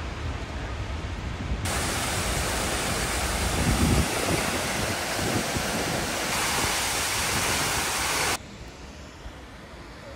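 Rushing water of a waterfall, a steady full hiss that starts abruptly about two seconds in and stops abruptly near the end, over a quieter background. Wind rumbles on the microphone through the first few seconds.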